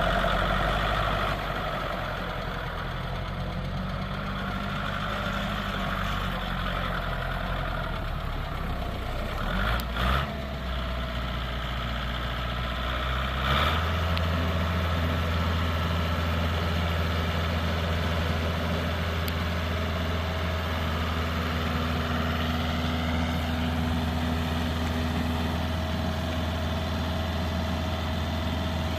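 Kubota L3350 tractor's diesel engine running steadily at idle. About halfway through, after a couple of short knocks, it steps up to a higher, steady speed.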